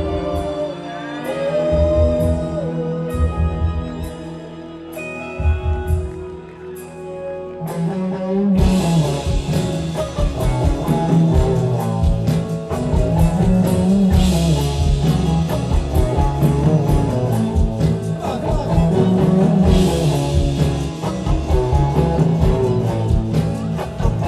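Live rock band playing, with singing. It starts as a quieter passage of held tones with light regular ticks, then about eight seconds in the full band comes in loud with drums and guitar.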